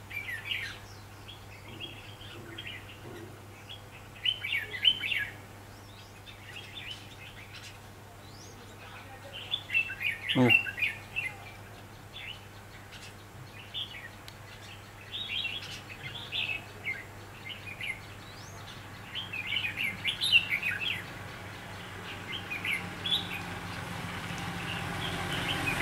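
Red-whiskered bulbuls singing and calling in short, scattered bursts of chirpy phrases.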